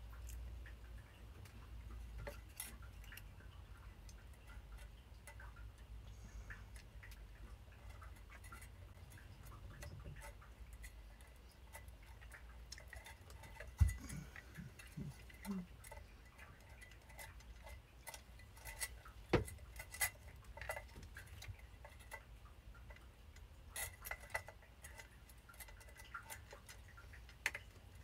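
Scattered small clicks and taps of a plastic cooling fan and its wire retention clips being fitted onto a metal CPU tower heatsink, with a few sharper clicks a little before halfway, around two-thirds of the way and near the end.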